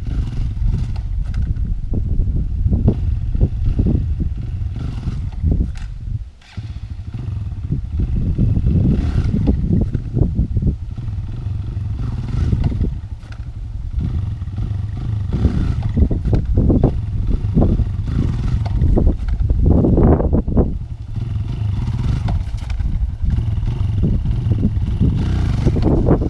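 Kawasaki KLX140 dirt bike's single-cylinder four-stroke engine revving and dropping back over and over as the front is popped up into short wheelies and brought down with the foot brake. The sound falls away briefly about six seconds in.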